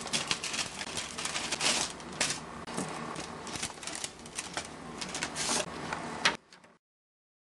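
A Priority Mail envelope being torn open, with the paper rustling and crinkling in quick rapid clicks. It ends abruptly with a sharp click about six seconds in.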